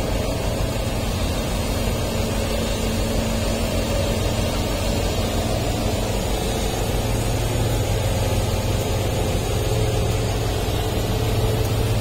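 Diesel engines of heavy construction machinery running in a steady low drone, the engine hum growing a little stronger over the last few seconds.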